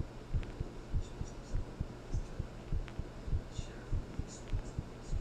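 Human heartbeat, a steady rhythm of paired low thuds (lub-dub) over a faint steady low hum, with a few faint high ticks.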